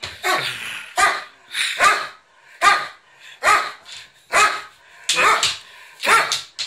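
An elderly Doberman barking over and over in play, a sharp bark a little less than once a second.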